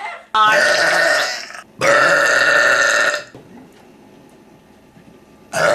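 Two long, loud burps one right after the other, each about a second and a half, then a pause; another starts right at the end.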